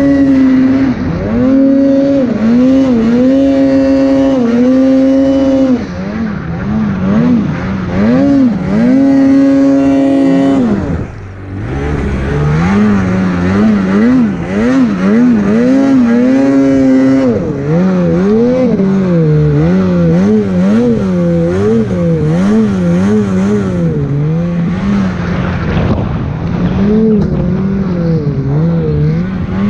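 Polaris Khaos snowmobile's two-stroke engine revving hard while ploughing through deep powder. It is held at high revs, drops off briefly about eleven seconds in, then rises and falls in quick throttle swings.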